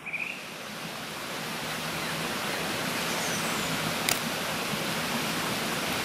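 Woodland stream running: a steady rush of flowing water that swells over the first couple of seconds and then holds, with a single small click about four seconds in.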